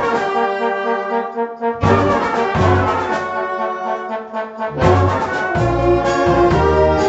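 Wind band of brass and woodwinds playing held chords, with low bass notes joining about two seconds in and again near the end.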